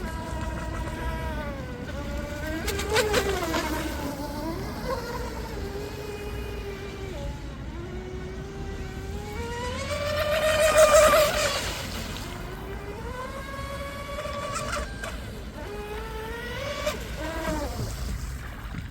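Electric RC speedboat's brushless in-runner motor whining, its pitch gliding up and down with the throttle. About ten seconds in the whine rises to its loudest and brightest, as on a fast close pass, then falls away.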